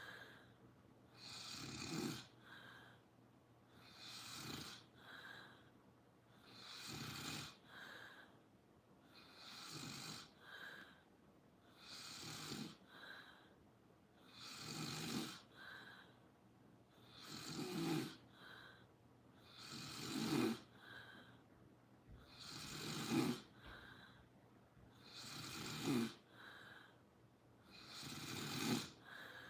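Regular snoring, one snore about every two and a half seconds, each with a low buzz followed by a shorter, softer breath.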